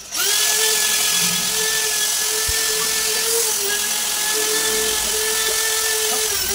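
Handheld rotary buffing tool spinning up, then running at a steady high whine with a hiss as its grinding bit roughens the rubber of a tractor inner tube around the puncture, ready for a patch; it starts winding down at the end.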